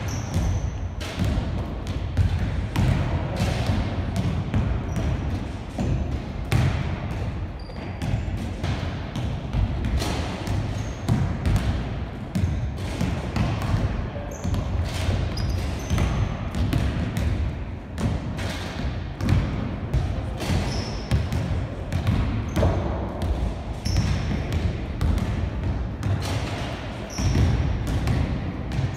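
Size 5 basketball dribbled on a wooden gym floor: many quick, irregular bounces. A few short high-pitched squeaks among them.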